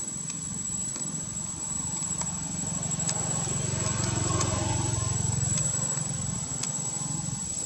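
Low engine hum of a motor vehicle, growing louder around the middle and then easing off as it passes.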